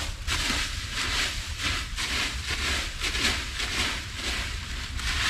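Dry leaves rustling and crunching in a run of short bursts, several in a few seconds, over a steady deep rumble.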